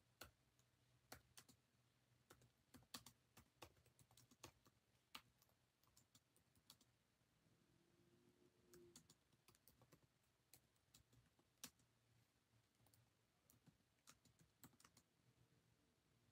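Faint, irregular light clicks and taps, several in quick runs with short gaps between them.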